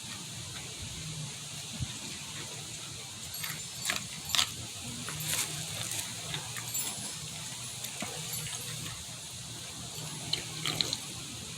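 Eating a jalapeño pepper: a few scattered sharp clicks and crunches over a steady low hum, with a cluster of them about four seconds in and another near the end.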